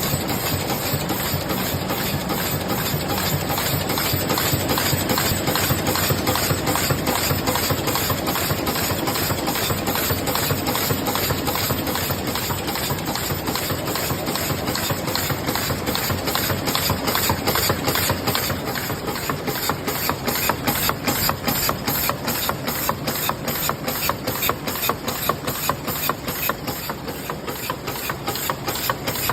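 NEWSMART XZT-150D double-wall paper cup machine running in production: a fast, steady clatter of repeating mechanical strokes over a constant hiss. The strokes stand out more sharply in the second half.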